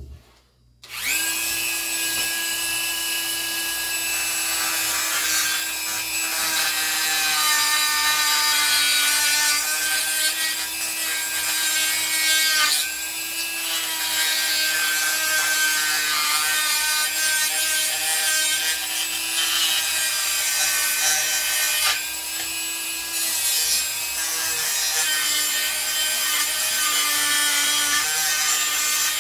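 Handheld rotary tool starting about a second in and running steadily at high speed, its small bit grinding down a part held in pliers to shorten it. The motor's whine wavers a little as the bit is pressed into the work.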